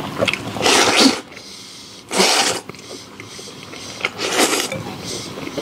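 A person slurping food from a bowl: three loud slurps, each about half a second long and about a second and a half apart, with quieter mouth sounds between them.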